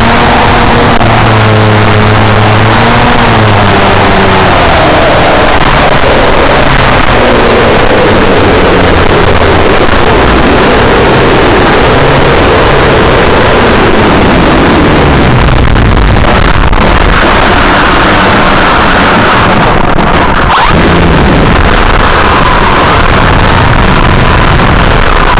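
Electric motor and propeller of an E-flite Commander RC plane, picked up by its onboard camera, with a loud rush of wind over the microphone. The motor's whine falls in pitch over the first few seconds as the throttle comes down for landing; a steadier high hum comes in during the second half.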